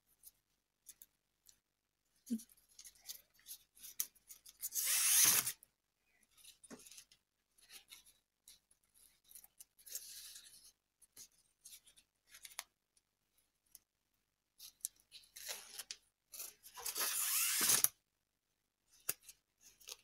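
Satin ribbon rustling and sliding against felt as it is pulled through and wound around a cardboard heart, with two longer swishes, one about five seconds in and one near the end. Light handling clicks come between them.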